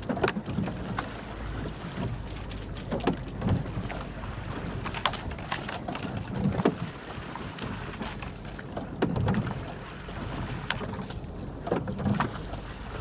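Rowing eight under way: the sweep oars knock in their oarlocks and splash through the water in a regular stroke rhythm, about one stroke every three seconds, over a steady wash of water and light wind.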